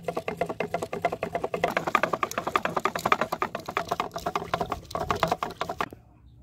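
Homemade fishing-line spool on stakes spinning as line is pulled off it, giving a rapid, even clicking with a slight ring that stops suddenly near the end.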